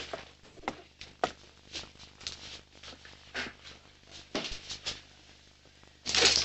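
Scattered short clicks, knocks and rustles of a person moving about and handling things, then a louder, short noisy sound about six seconds in as she reaches the door.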